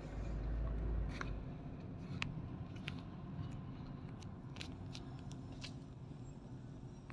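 Low rumble of a taxi heard from inside its cabin, loudest for the first second or so and then steadier as the car rolls up to stopped traffic. Scattered light clicks and ticks come at uneven intervals.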